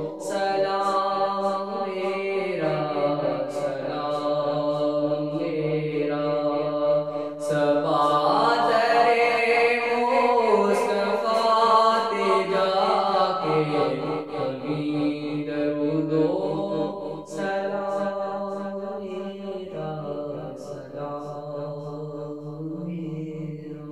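Male voice singing an Urdu devotional salaam (naat-style recitation) in long, drawn-out melodic notes over a steady low drone; it fades toward the end.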